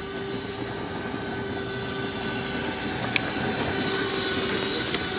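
Battery-powered ride-on toy car driving along asphalt: its electric motor and gearbox whine steadily over the rumble of its plastic wheels. A single sharp click about three seconds in.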